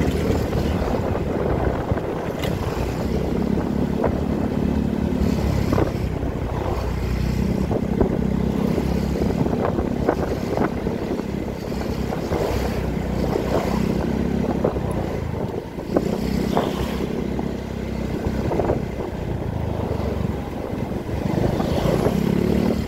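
Yamaha scooter's small single-cylinder engine running at low speed in traffic, its note swelling and easing every few seconds with the throttle. Wind rumbles on the microphone, with scattered light knocks.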